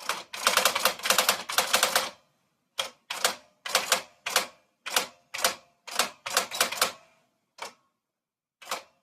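Typewriter keys striking the page: a fast run of keystrokes for about two seconds, then slower single strokes about twice a second, and two lone strokes near the end.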